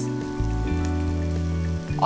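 Scallions sizzling as they fry in a pan of ghee with sautéed onions and tomatoes, a steady frying hiss, under background music with sustained notes.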